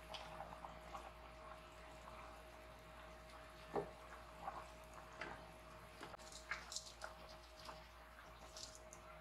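A spatula stirring a pot of simmering soup: liquid sloshing with light scrapes and clicks against the stainless steel pot, and one sharper knock about four seconds in. A faint steady hum from the induction cooker lies under it.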